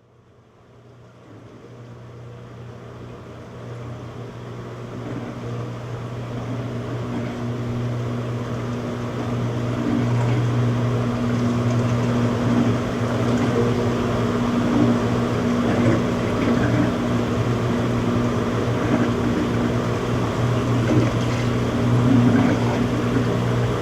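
Front-load washing machine in its spin cycle: a steady low hum over a whirring rush, growing louder over the first ten seconds or so and then holding steady.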